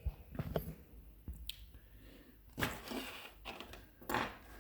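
Small metal clicks and brief rustling handling noises from lock parts being handled as a lock is taken apart, with a few sharp ticks in the first second and a half and two short scrapes later on.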